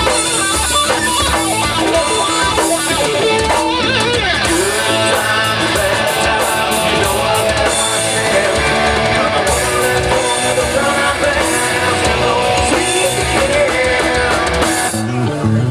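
Live rock band playing with electric guitar, bass and drum kit, all loud through a PA. Near the end the high end drops away for a moment, leaving mostly bass.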